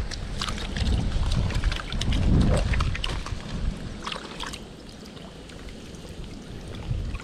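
Wind rumbling on the microphone over the trickle and splash of a shallow river riffle; the rumble eases off about halfway through.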